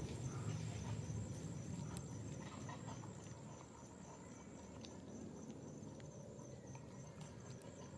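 Faint outdoor background: a steady low rumble with scattered soft clicks and a faint, evenly pulsing high tone.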